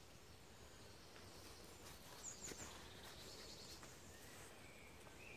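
Quiet woodland ambience, nearly silent, with a few faint high bird chirps in the middle and again near the end.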